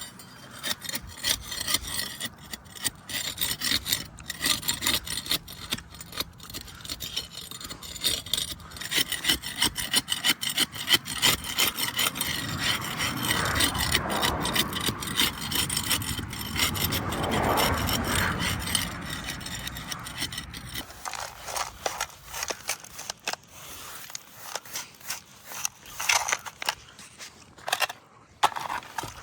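Repeated rough scraping and rubbing strokes, as of a hand tool cleaning up the edge of a freshly cured concrete base. A broader rushing noise swells up in the middle and fades away.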